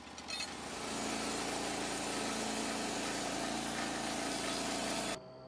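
A portable sawmill's engine running steadily, building up over the first second, then cut off suddenly near the end.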